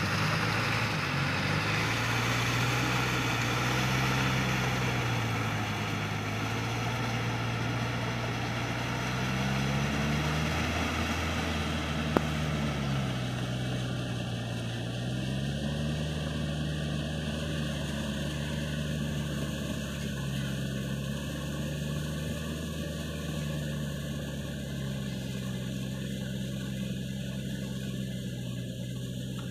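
Diesel tractor engine running under load as it drives a rotary tiller through flooded paddy mud, its pitch sagging and rising again several times as the load changes. A single brief click sounds about twelve seconds in.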